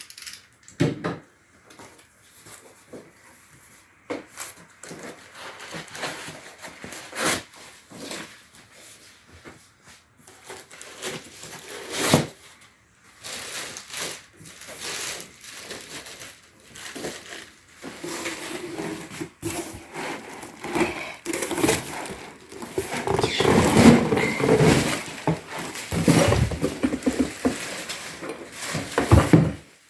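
Scattered knocks, clicks and scrapes of objects being handled in a small room, sparse at first and busier and louder in the second half.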